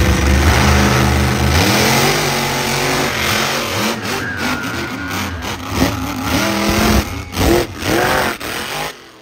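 Monster truck engines revving hard, the pitch climbing and falling again and again with the throttle, loudest about seven to eight seconds in, then dropping away just before the end.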